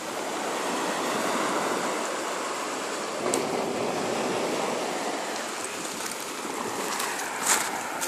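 Small waves breaking and washing up a sand-and-pebble beach: a steady surf hiss that swells and eases, with one brief click about three seconds in.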